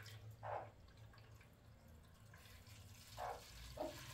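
Water trickling in a thin stream from a cup into a shallow metal drinking tray, faint. Near the end a hen gives two short, soft clucks.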